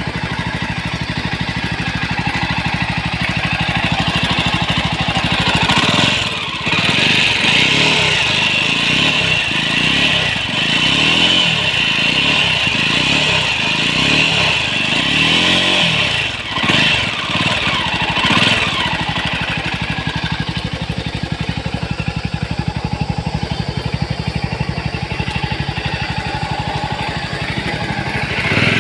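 Jawa 42 motorcycle's single-cylinder engine running, revved up and down repeatedly for a stretch in the middle, then settling back to a steady idle. It makes an abnormal noise that the mechanic calls a bad engine sound.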